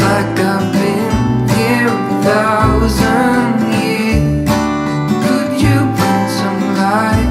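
Background music: a song led by strummed acoustic guitar.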